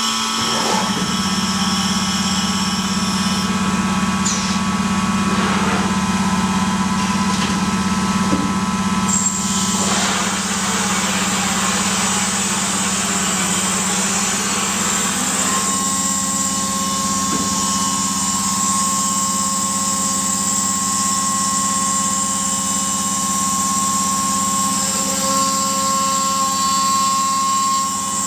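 CNC router machining wood: the spindle runs with a steady high whine over a low hum, with a rougher, hissing stretch of cutting noise in the middle.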